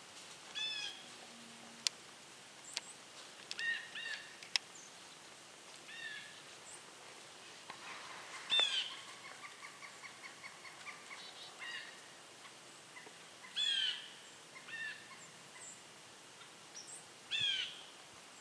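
Birds calling: a short, harsh call of falling tones, repeated about half a dozen times, with a faint rapid chatter near the middle. A few sharp clicks come in the first few seconds.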